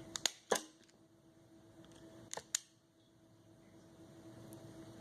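A few sharp clicks: a group of three right at the start and a pair about two and a half seconds in, over a faint steady hum.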